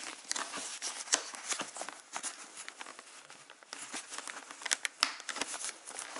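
Cloth rustling with scattered sharp plastic clicks: the fabric wind curtain of a snowmobile helmet being worked around the shell's rim and pressed into its clips.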